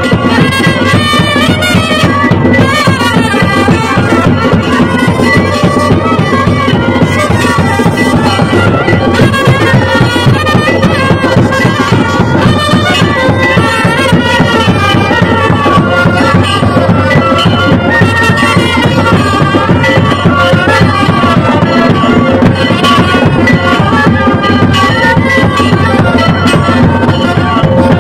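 Loud traditional festival music: a wind instrument plays a wavering melody over a steady held drone, with continuous drumming.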